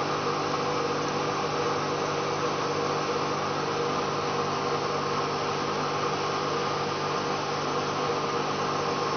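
Steady hum of running machinery with an even airy hiss and a few held tones.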